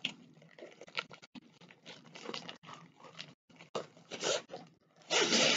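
White wrapping around a rolled diamond-painting canvas crinkling and rustling as it is handled and unwrapped, in irregular crackles, with a louder rustle about five seconds in.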